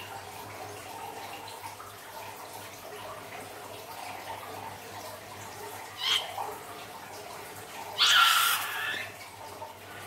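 Liquid slime trickling from the neck of a squeezed rubber balloon into a glass dish of slime. A short sputtering squirt comes about six seconds in, then a louder one near eight seconds, about a second long, with a squeak that dips and rises.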